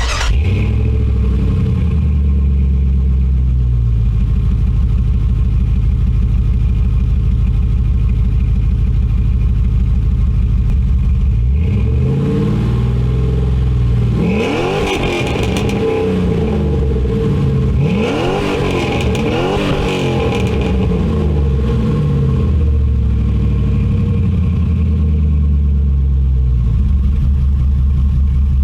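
A 4.7-litre V8 fires up through a Hooker Aero Chamber muffler and settles into a steady idle. It is revved several times near the middle, then drops back to idle.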